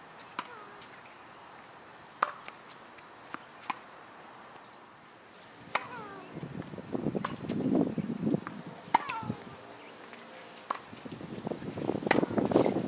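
Tennis ball being hit back and forth on a hard court: sharp pops of racket strikes and ball bounces at irregular intervals, about a dozen in all. Two stretches of rough scuffing noise about halfway through and near the end.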